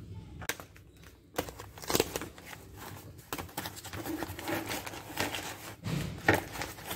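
Hands opening the packaging of a spare action-camera battery: scattered rustling and sharp clicks, the loudest about two seconds in and again near the end.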